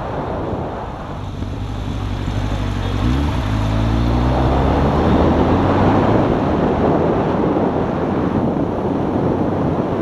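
Motorcycle riding with heavy wind buffeting on the microphone. The engine note comes through about three seconds in, rising a little as the bike pulls away, then fades back under the wind.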